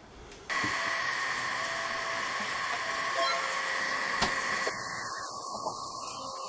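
Enjoywood CEL-E10 10 W diode laser engraver cutting 2 mm plywood: a steady fan hiss starts about half a second in, with short faint whines from the head's motors coming and going over it and one sharp tick about four seconds in.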